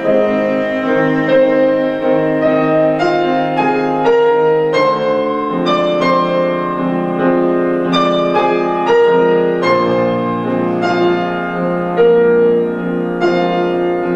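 Cello and Petrof grand piano playing a slow nocturne: long bowed cello notes over piano notes struck about once a second.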